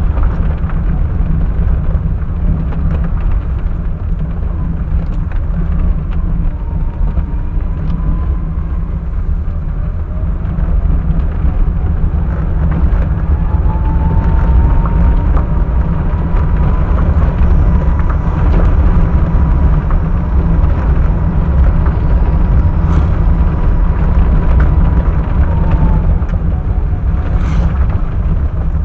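Car driving, a steady low engine and road rumble heard from inside the cabin through a dashcam microphone. It grows a little louder about halfway, and a faint steady whine runs through the middle stretch.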